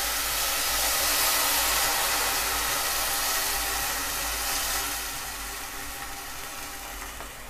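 Blended roasted-tomato salsa poured into hot oil and fried onion in a cazuela, sizzling as a steady hiss that starts to die down about five seconds in.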